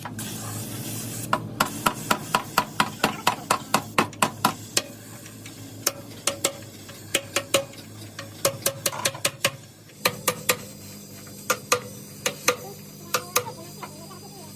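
Sharp metallic taps and knocks from hand tools working on a car, coming rapidly at about three to four a second for a few seconds, then more scattered. A short hiss comes at the start.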